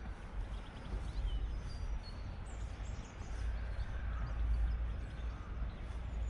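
Wind rumbling on the microphone, with a few faint, short, high bird chirps.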